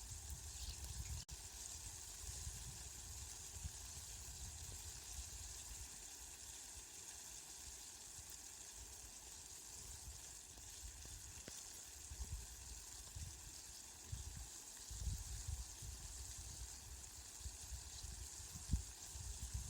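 Steady rain falling, an even hiss, with a low rumble that swells and fades underneath, stronger near the end.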